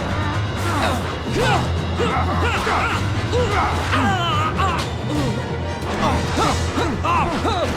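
Dramatic action music with battle sound effects: crashes, hits and whooshes, and many short rising-and-falling electronic zaps overlapping throughout.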